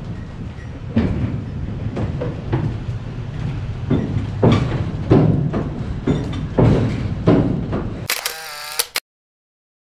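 Irregular sharp knocks and thuds over a steady low rumble, followed near the end by a short pitched sound; then the sound cuts off suddenly about nine seconds in.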